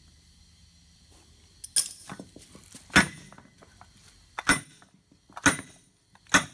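Five sharp metal-on-metal knocks, roughly a second apart, each with a short ring, as pieces of a seized, broken wheel-hub bearing are worked loose.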